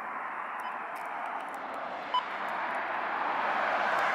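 Steady road-traffic noise from passing cars, swelling toward the end, with one brief high-pitched blip about two seconds in.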